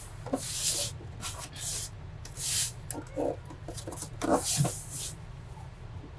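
Plastic top cover of an Alienware Aurora R10 desktop case being handled and fitted: a string of short rubbing and scraping noises over a low steady hum.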